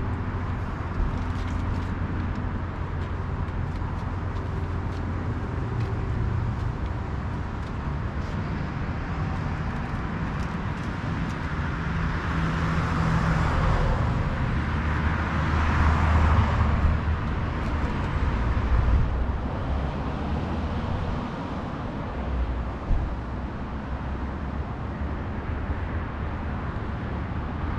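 Steady low rumble of motor traffic, swelling and fading as a vehicle goes by midway, with a single short knock later on.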